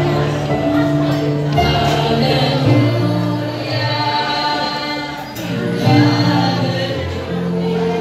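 Small group of amateur singers, women and a man, singing a Christmas worship song through microphones over a recorded backing track with held bass notes.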